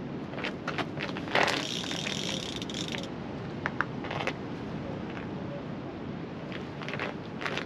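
Sea-fishing reel ratcheting as it is worked for about a second and a half, starting just over a second in, with scattered sharp clicks and knocks from the rod and reel around it. The angler is taking up slack line after a bite on the rod.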